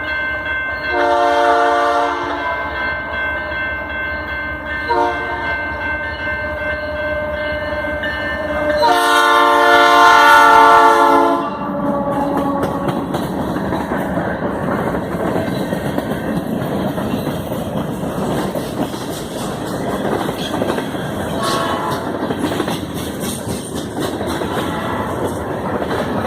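Canadian Pacific locomotive's P3 air horn sounding three times: a blast of about a second and a half, a brief toot, then a louder blast of about two and a half seconds. The train then passes close by, wheels clattering rhythmically over the rail joints.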